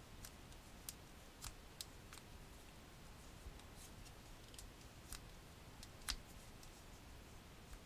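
Faint, irregular keystrokes on a computer keyboard as a password is typed, a dozen or so separate clicks over near-silent room tone.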